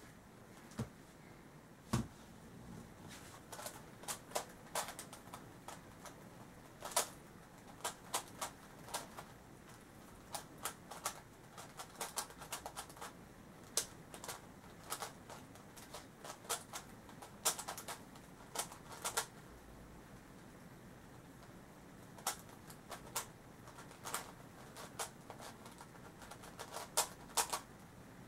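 A plastic megaminx puzzle being turned quickly by hand during a solve: irregular runs of sharp plastic clicks as its faces snap round, with short pauses between runs.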